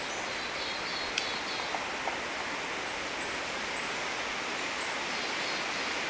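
Steady outdoor hiss of woodland ambience, with a faint run of high bird chirps in the first second and a single sharp tick a little over a second in.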